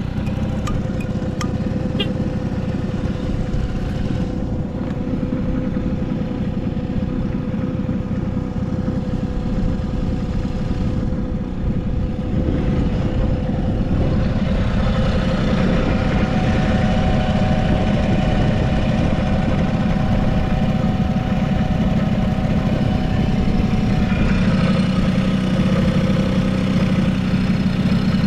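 Honda Squash AB11 scooter's small engine idling steadily, a little louder from about halfway through. It runs quietly with no abnormal engine noise.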